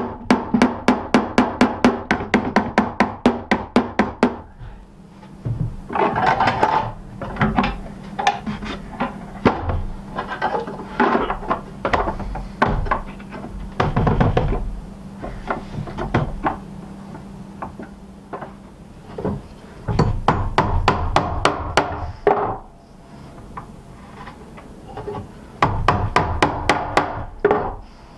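Small hammer striking hand-forged iron nails into a wooden board: a quick, even run of taps at about four or five a second, then irregular knocks and handling of iron hardware, with another quick run of taps near the end.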